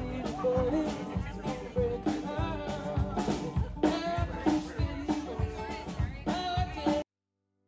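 Live band music: a man singing over a resonator guitar with a drum kit keeping a steady beat. The music cuts off abruptly about seven seconds in.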